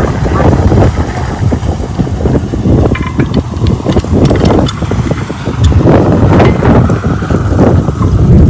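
12 HP diesel water-pump engine running loudly and steadily, with a low, fast pulsing hum.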